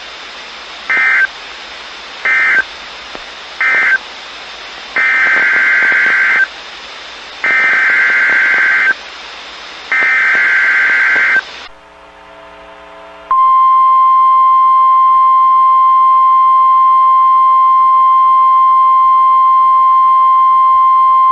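NOAA Weather Radio Emergency Alert System tones over radio static. First come three short bursts of SAME digital data: the end-of-message code closing the previous test. Then three longer SAME header bursts, each a buzzy warble of two alternating tones, announce the next alert. About 13 seconds in, the steady 1050 Hz warning alarm tone starts, holds for about nine seconds and cuts off near the end.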